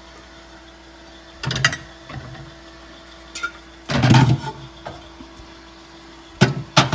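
Knocks and clatter of objects being handled and set down: a short one about 1.5 s in, the loudest around 4 s, and two quick ones near the end, over a steady faint hum.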